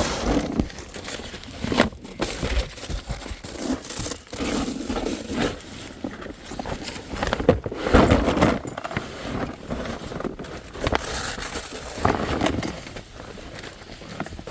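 A person crawling through a crawlspace: irregular scraping and crinkling as body and gear drag over the ground, with the loudest shuffle about eight seconds in.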